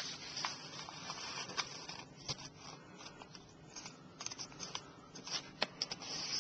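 A sheet of printer paper being folded by hand, with a corner brought in to the centre crease: faint rustling with scattered small crinkles and clicks.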